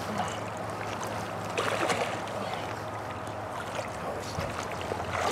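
Steady rush of flowing creek water, swelling briefly a little over a second and a half in.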